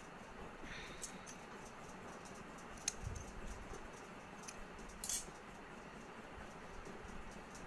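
Faint rustling and scratching of hands handling bundled threads on a cloth surface, with three short sharp clicks, about one, three and five seconds in, over a steady background hiss.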